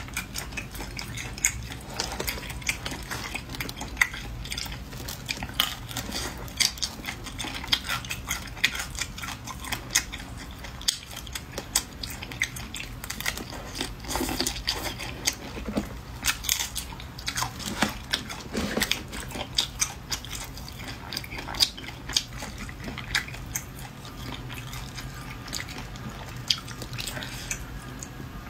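Close-miked eating: chewing and biting with many irregular wet clicks and smacks, mixed with the crackle of shrimp shell being peeled by hand.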